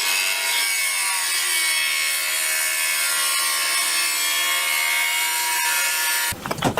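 A power tool running steadily with a high whine over a rasping noise, typical of cutting. It stops abruptly about six seconds in.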